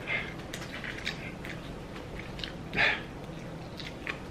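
Person eating spicy chicken wings: scattered chewing and mouth clicks and smacks, with one short, sharp breath drawn through the mouth nearly three seconds in, the kind of reaction a very hot sauce brings.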